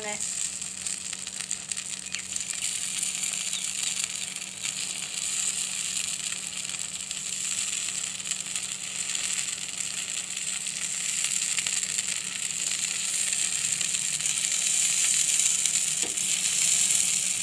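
Batter for sweet paniyaram frying in oil in the cups of a paniyaram pan: a steady sizzle that gets a little louder near the end.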